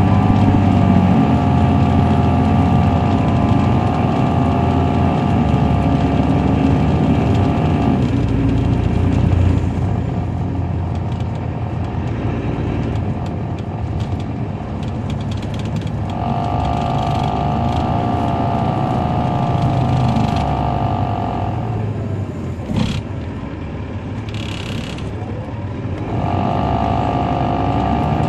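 The Caterpillar C13 diesel of a 2007 MCI D4500CL coach heard from on board while under way, pulling three times with a wavering whine over the engine drone that comes in and cuts off, easing between the pulls. A sharp click near 23 seconds, then a brief hiss.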